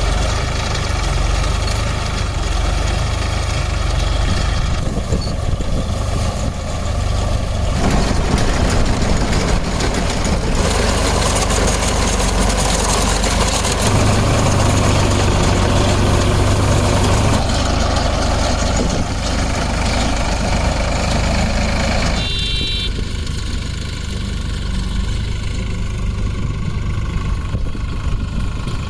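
Solis 4515 tractor's diesel engine running steadily, with the noise swelling to a harsher rush for several seconds in the middle.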